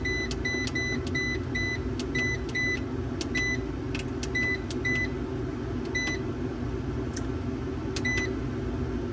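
MPP Solar PIP LV2424 inverter's keypad beeper giving one short high beep per button press while its settings menu is scrolled, about three beeps a second at first, then a few single beeps about a second apart. A steady low hum runs underneath.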